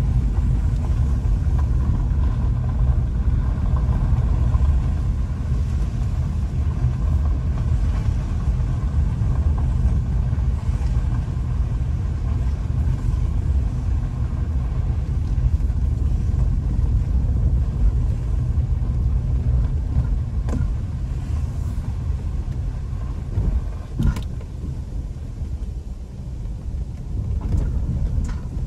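Steady low rumble of a car heard from inside the cabin as it drives along an unpaved woodland lane, with a single knock about four-fifths of the way through.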